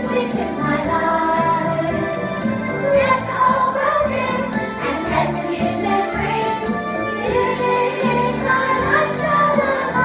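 A song with group singing over a backing track with a steady beat.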